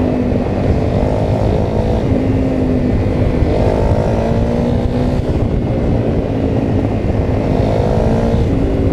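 Honda CRF250L's single-cylinder four-stroke engine running in slow traffic, its pitch rising twice as the bike pulls forward, over a steady low rumble of wind and road noise.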